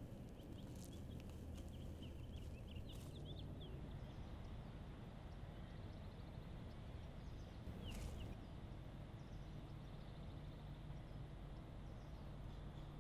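Faint outdoor ambience: a steady low rumble, with a bird chirping in a quick run of short notes a couple of seconds in and once more about eight seconds in.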